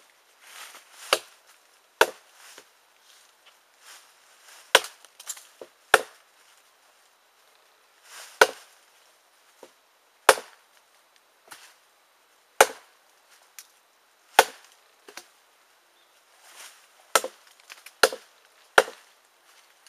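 Cold Steel Gurkha Kukri, a heavy SK-5 carbon-steel blade, chopping into a wooden log, with about a dozen sharp blows landing every second or two.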